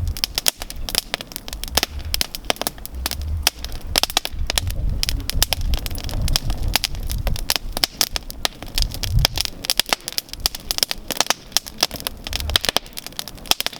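Outdoor campfire crackling, with many sharp snaps and pops coming fast and irregularly and a low rumble underneath that swells and fades.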